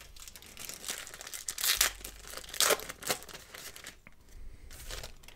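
Foil-lined wrapper of a 1990/91 Pro Set football card pack being torn open and crinkled by hand, with irregular crackles, the loudest about two and three seconds in.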